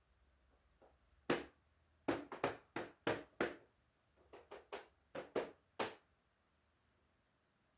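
A quick, irregular run of sharp clicks and knocks, about fifteen over four and a half seconds, as parts of a Brother DCP-T310 printer are handled during repair.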